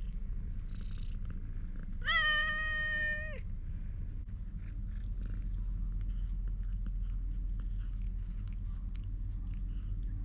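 A black-and-white cat meows once, a single long call of just over a second, about two seconds in; its pitch rises at the start and then holds steady. Faint small clicks follow through the second half.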